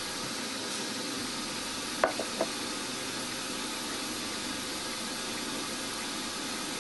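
Steady hum of a milling machine running while small bolt holes are drilled in an aluminium engine part, with one sharp metallic knock about two seconds in, followed quickly by two lighter clicks.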